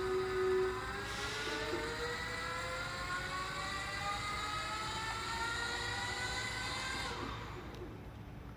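Brushless electric drive motor of a remote-control wheeled chassis whining, its pitch climbing steadily as it speeds up through its speed gears. It winds down and stops about seven seconds in.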